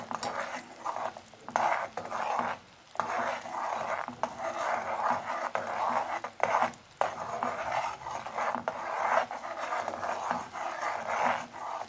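Sugar syrup in a small saucepan cooking into caramel: an irregular rasping, scraping noise that comes in patches of a second or so with short breaks.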